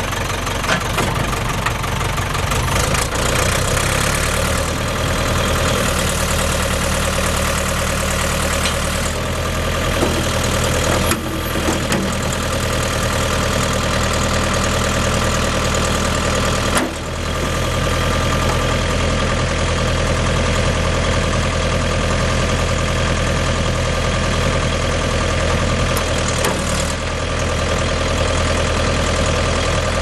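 The Ford diesel engine of a 1996 Ford 555D backhoe running steadily, its note shifting a few times, with a brief dip about seventeen seconds in.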